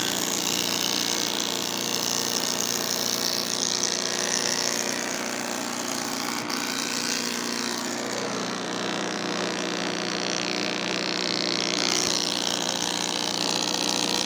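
Wood moulding machine running and cutting, a steady machine drone with a dense cutting hiss as its feed rollers drive a timber strip past the cutter heads, with a slight change in tone about eight seconds in.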